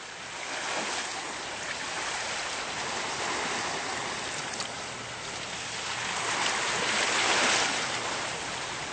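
Sea surf washing onto a rocky shore: a steady rush of breaking waves that swells and eases, loudest near the end, then cuts off abruptly.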